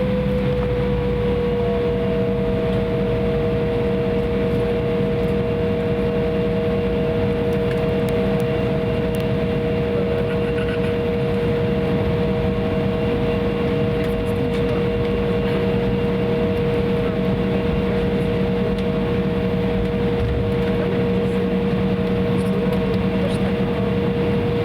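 Embraer 170's General Electric CF34 turbofan engines heard from inside the cabin, giving a steady whine over a constant rumble. The whine eases slightly lower in the first second, and a second, higher whine joins about two seconds in.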